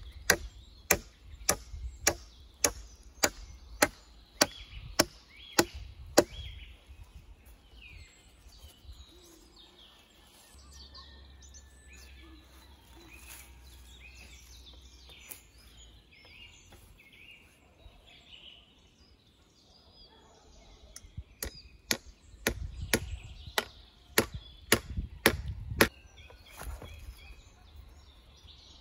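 Wood being chopped with an axe: sharp, regular strokes about two a second for some six seconds, then a quieter lull, then a second run of strokes near the end.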